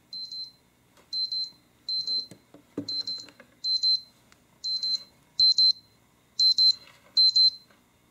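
Xiaomi AI Smart Alarm Clock's speaker sounding its timer chime: a high, tinny beep pattern repeating about once a second and getting progressively louder. A few knocks from the clock being handled come about three seconds in.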